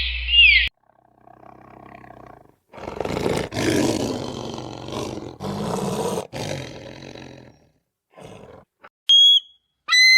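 A big cat roaring: a low growl, then a series of loud, rough roars. It is briefly preceded and followed by short, high whistle-like tones from neighbouring clips.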